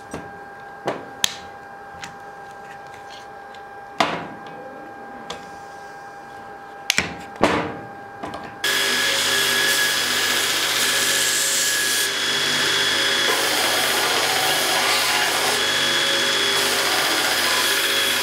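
A few sharp knocks and clicks of wood and tools on a workbench, then, about eight and a half seconds in, a belt grinder starts sounding suddenly and runs loud and steady as a strip of wood is sanded against its belt.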